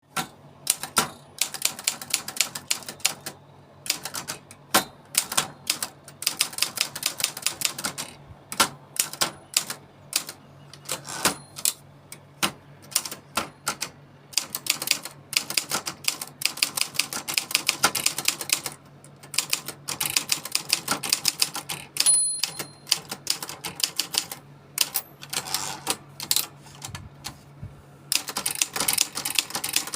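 Olympia SF Deluxe portable manual typewriter being typed on: fast runs of sharp key and typebar clacks broken by short pauses. About two-thirds of the way through, the carriage's margin bell rings once briefly.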